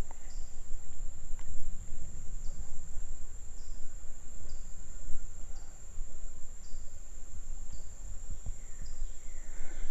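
Insects, crickets or katydids, making a steady high-pitched drone, with a shorter, lower chirp repeating about once a second, over a low rumble.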